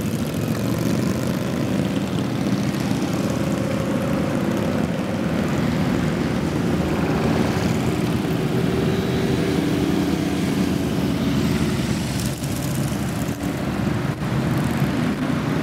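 Many motorcycle engines running together as a large group of motorcycles rides past in a steady drone, with individual engines now and then rising in pitch.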